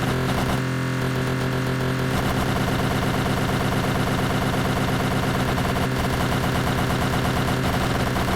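Greenworks 40V cordless lawn mower running steadily, its electric motor and blade giving a constant hum.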